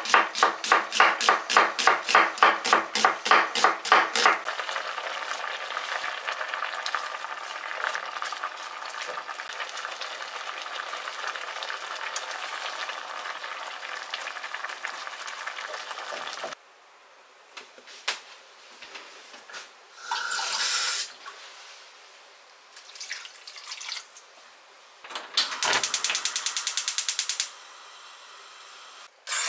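A chef's knife chopping an onion on a wooden cutting board, about four even chops a second, stopping about four seconds in. Then a steady watery hiss as pumpkin and onion cook in a glass pot. After about sixteen seconds it turns quieter, with scattered small clicks and a brief run of rapid clicking near the end.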